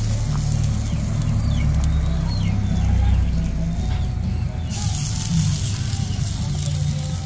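Steady low rumble of the ring burner under a pot of boiling soup, with faint short bird chirps above it.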